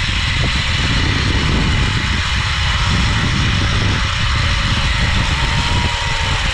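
Zipline ride at speed: wind rushing over the microphone with the trolley's pulleys running along the steel cable, a steady loud rush. A faint thin whine joins in during the second half.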